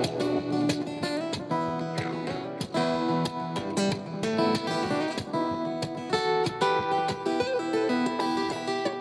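Background music: an instrumental passage with acoustic guitar playing to a steady rhythm.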